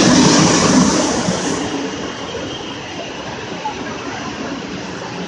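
Electric-hauled passenger train rolling past along a platform: the locomotive goes by loudly with a hissing rush, and after about a second and a half the noise drops to the quieter, steady rumble of the coaches passing.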